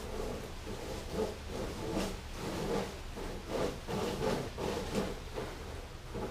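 Leafy cut tree branches being dragged and handled, a run of irregular rustling swishes and scrapes.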